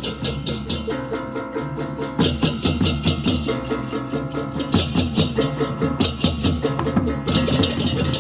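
Balinese baleganjur gamelan playing a fast, driving rhythm: rapid interlocking strokes on bronze kettle gongs and clashing ceng-ceng cymbals over drums and gongs.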